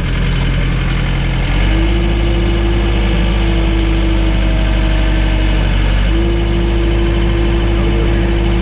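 Case/Davis D100 backhoe's engine running steadily. About a second and a half in it steps up slightly, and a steady humming tone rides over it.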